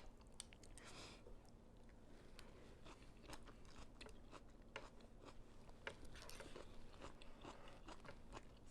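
Faint crunchy chewing of fresh raw vegetables from a bowl of vegetable pho, with many small crisp crunches and clicks.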